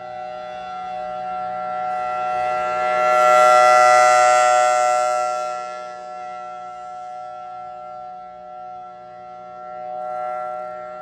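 Federal Signal Thunderbolt 1003A2 civil defense siren sounding a steady tone at full speed. Its loudness swells and fades as the rotating horn sweeps past, loudest about four seconds in and rising again near the end.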